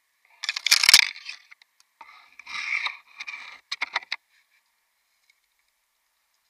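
Yew twigs and foliage rustling and cracking as a gloved hand works in the branches during pruning: a loud burst about half a second in, a second burst around two and a half seconds, then a few sharp cracks around four seconds.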